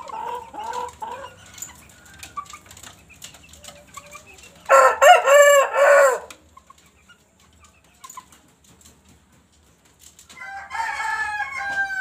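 Chicken calls: low clucking dies away in the first second, then a rooster crows once, loud and short, about five seconds in. Another drawn-out call starts near the end.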